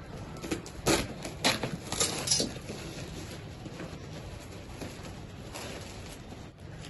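Handling noises from unpacking a dumbbell set: a few sharp knocks and clatters in the first two and a half seconds, then only quieter rustling.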